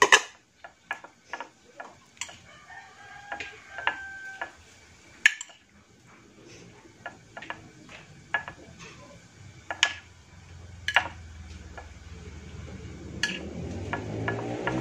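A metal spoon tossing sliced vegetables in a glass baking dish, clicking and knocking against the glass again and again. A rooster crows faintly about three to four seconds in, and an engine rumble grows louder over the last few seconds.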